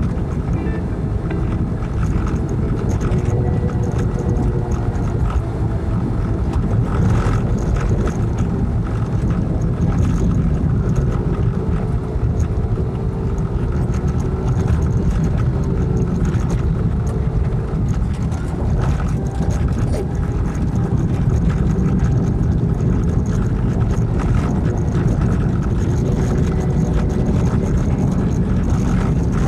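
Vehicle engine and tyre noise heard from inside the cabin while driving on a wet gravel road, a steady rumble whose engine pitch drifts up and down with the revs, with a few brief knocks.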